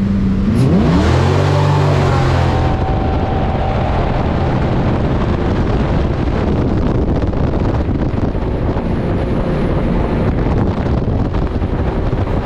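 GM LS3 6.2-litre V8 jet boat engine revving up hard about a second in. Then a steady loud rush of wind and water drowns most of the engine as the boat runs at speed.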